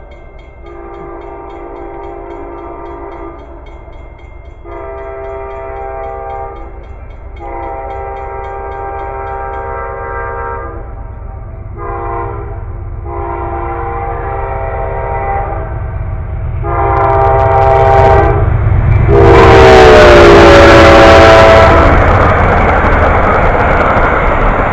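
Amtrak passenger train's locomotive horn sounding for a grade crossing: a string of long blasts with one short one, growing louder as it approaches, the last blast dropping in pitch as the locomotive passes. Then a loud rush of the passenger cars going by close on the rails.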